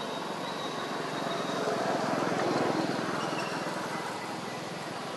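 Steady outdoor background rumble and hiss that swells to a peak about halfway through, then eases back.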